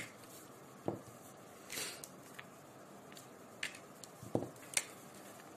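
A few faint, scattered clicks and knocks with a brief soft rustle, like small handling noises at a desk, over quiet room tone.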